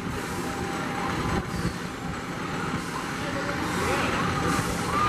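Roller coaster train and ride machinery running, a steady mechanical rumble that grows a little louder toward the end, with people's voices mixed in.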